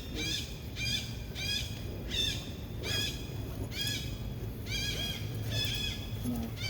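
Baby monkey crying: a rapid series of short, high-pitched calls, each rising and then falling, two to three a second with brief pauses between runs.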